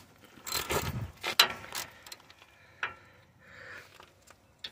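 Hand socket ratchet working a 10 mm brake caliper bolt loose, giving short runs of pawl clicks and a few sharp metallic clacks, the loudest about a second and a half in.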